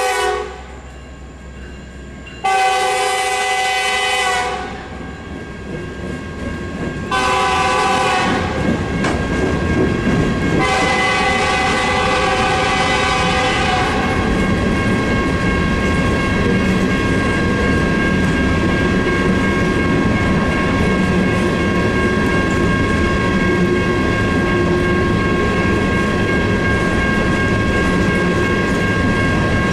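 Coal hopper cars of a freight train rolling through a grade crossing, their wheels clacking and rumbling on the rails. The locomotive's horn, farther down the line, sounds three blasts in the first fourteen seconds, the last the longest. A steady crossing bell rings underneath.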